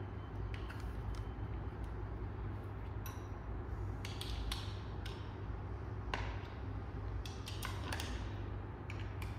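Scattered small clicks and scrapes of a hand tool turning a screw to fix a scooter's front fender, the sharpest about six seconds in, over a steady low hum.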